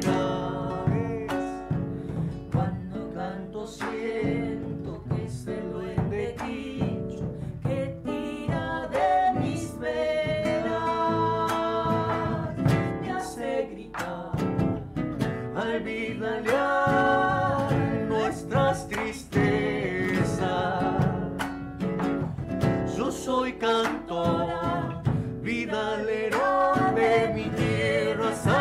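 Live folk song: a woman singing to acoustic guitar strumming, with percussion played with sticks.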